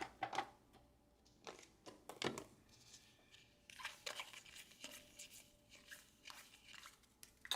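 Faint, scattered crinkling and tearing of baseball card pack wrappers as packs are opened and cards handled, a few short crackles at a time.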